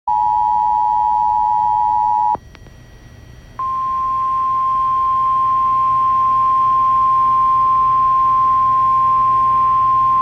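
Emergency Alert System tornado warning tones. The two-tone attention signal, a chord of two close pitches near 853 and 960 Hz, sounds for about two and a half seconds and cuts off. After a pause of about a second, the single steady 1050 Hz warning alarm tone of NOAA Weather Radio begins and holds, signalling that a warning broadcast follows.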